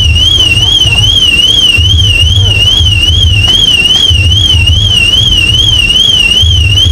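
A loud electronic alarm warbling quickly up and down in pitch, about three times a second, without a break, over a low rumble that swells and fades.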